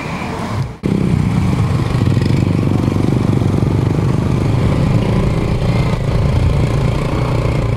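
Small motorcycle engine running steadily while being ridden, heard from the rider's seat; the engine sound starts abruptly about a second in.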